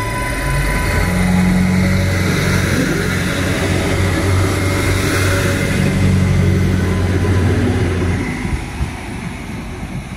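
Adelaide Metro 3000/3100-class diesel railcar pulling away from the platform, its diesel engine running hard under power with a steady deep drone, plus rolling wheel and rail noise. The engine note drops off about eight seconds in.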